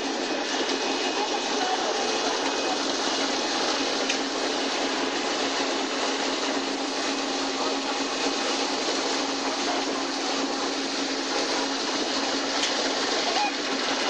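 Industrial apple washing machine running: a steady whir of motors mixed with churning, spraying water, over a constant low hum.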